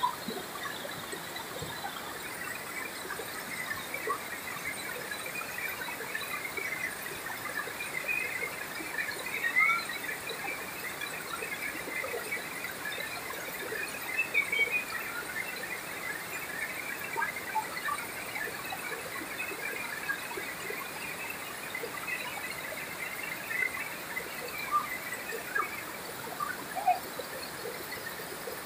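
River rapids rushing over rock ledges, a steady wash of water noise, with many short, high squeals scattered over it and a few louder ones.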